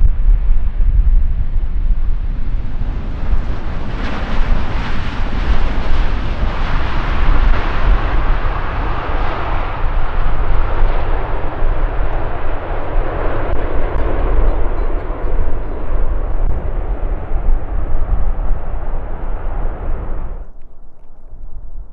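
Airliner flying past, its engine noise swelling a few seconds in and slowly fading, over a heavy rumble of wind on the microphone; the sound cuts off abruptly near the end.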